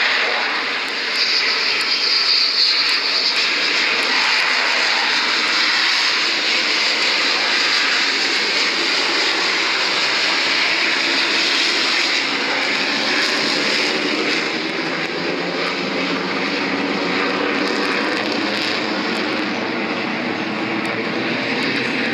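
Jet engine noise from USAF Thunderbirds F-16 fighters flying their display: a steady roar, loudest and hissiest in the first few seconds.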